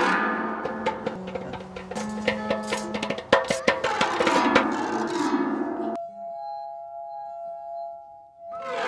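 A stick striking and scraping the exposed strings of a piano's iron frame, a dense jangle of ringing, overlapping notes. About six seconds in it cuts to a few steady, held ringing tones from water-filled drinking glasses. Struck notes start again near the end.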